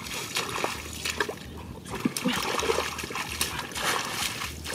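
Shallow muddy floodwater splashing and trickling in irregular bursts as wading legs and hands move through it, louder from about two seconds in.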